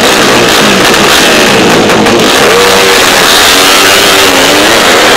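Loud music playing over a drag-racing motorcycle with a small horizontal-cylinder engine. The engine revs up and launches off the start line partway through, its pitch rising as it pulls away.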